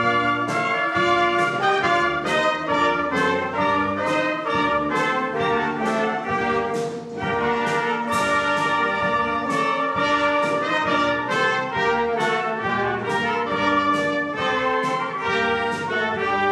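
Military brass band playing a tune: trumpets and trombones over a low bass line, with a steady beat.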